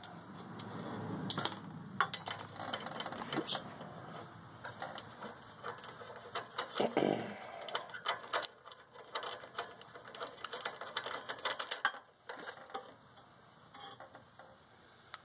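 Small socket ratchet clicking in quick runs of ticks as a spark plug is loosened and unscrewed, with tool-handling rattles.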